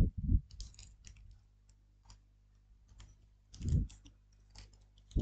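Small hardware being handled and set down on a cutting mat: scattered light clicks and ticks, with a sharper knock at the start and a soft thump about three and a half seconds in.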